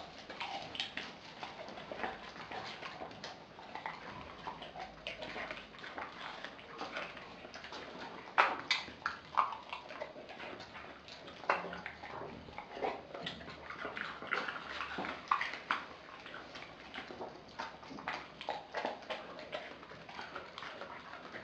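A pit bull, German shepherd and chow chow mix dog eating raw food from a glass bowl: steady wet chewing and licking, with a few sharper crunches or snaps about eight to nine seconds in and again near twelve.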